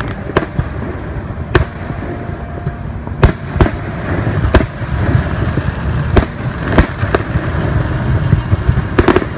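Aerial firework shells bursting overhead: a string of sharp bangs at irregular intervals, roughly one a second and some in quick pairs, over a steady low rumble.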